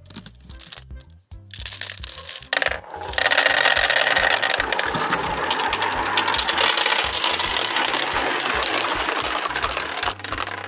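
Many marbles clattering and rolling down a marble run: scattered clicks at first, then a dense, loud rattle from about three seconds in that stops just before the end. Background music with a steady beat plays underneath.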